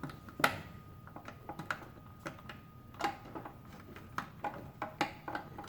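Irregular small clicks and taps of parts being handled and fitted together while a toy mechanical bank is reassembled, with a sharper knock about half a second in.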